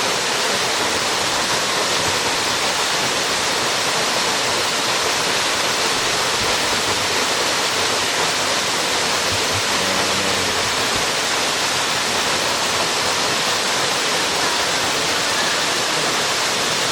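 Waterfall pouring steadily into a swimming pool below it, a constant, even rush of water.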